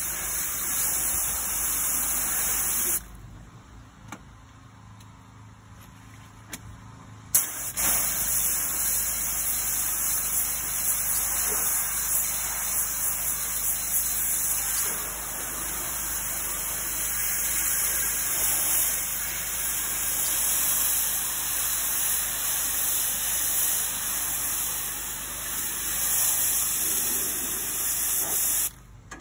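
Pressure washer wand spraying high-pressure water onto brick steps, a steady hiss that stops for about four seconds near the start and then resumes, cutting off just before the end. A steady engine hum from the pressure washer's motor runs underneath, even while the spray is off.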